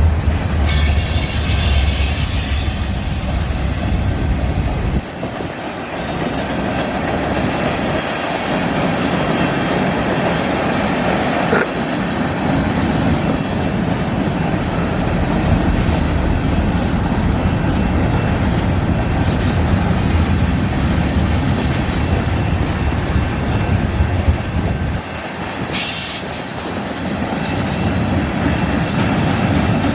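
Freight train passing: a diesel locomotive's low engine rumble for the first five seconds or so, then the freight cars rolling by with steady wheel-on-rail noise and clatter. Brief high wheel squeals come near the start and again near the end.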